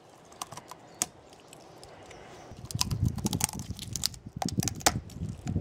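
Dog chewing a pine cone, its teeth cracking and crunching the woody scales in a run of sharp clicks that come faster and louder from about halfway through.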